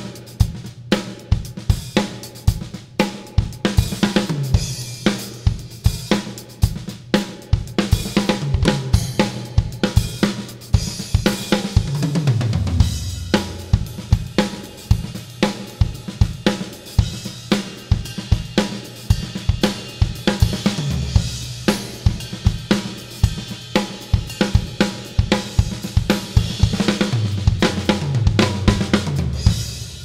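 Acoustic drum kit with Arborea Killer series cymbals played as a steady beat of kick, snare and hi-hat with crash and ride cymbals washing over it. Three times the beat breaks into a fill that runs down the toms, falling in pitch.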